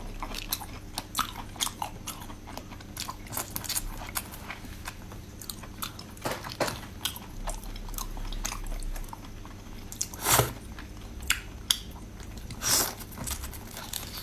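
A person eating close to the microphone: a run of crisp crunching bites and chewing, with louder crunches about ten and thirteen seconds in.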